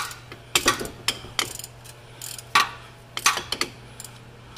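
A ratchet working an alternator mounting bolt: short bursts of ratcheting at irregular intervals, the loudest about two and a half seconds in.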